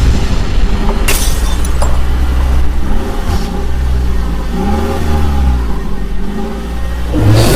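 Vehicle engine running and revving, its pitch rising and falling in slow swells over a steady low rumble, with a sharp click about a second in and a louder rushing noise coming in near the end.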